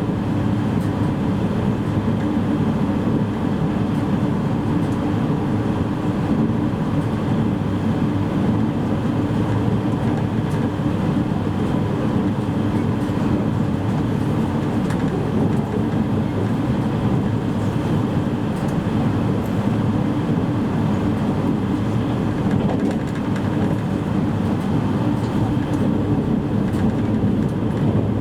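Steady rumble of an E653 series electric train running along the line, heard from inside the motor car: wheels on rail with faint clicks of the track joints.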